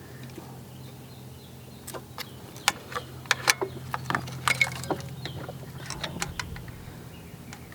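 Hand tools and small metal parts clicking and clinking, a rapid cluster of sharp taps over a few seconds, over a steady low hum.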